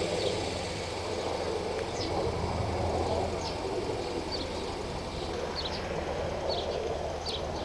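Steady low engine drone, with small birds chirping over it in short high chirps.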